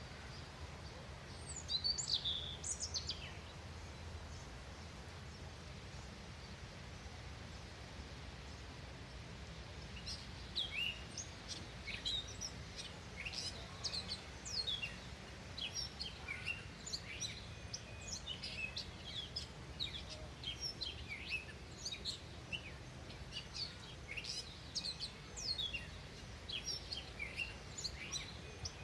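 Small songbirds chirping: short, high, falling chirps, a few at first, then from about a third of the way in a near-continuous stream of quick chirps. A steady low outdoor rumble runs underneath.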